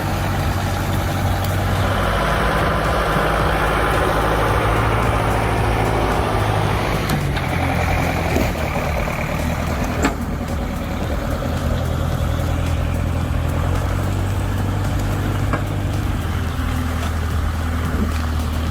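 A large engine running steadily with a low hum, and a single sharp knock about ten seconds in.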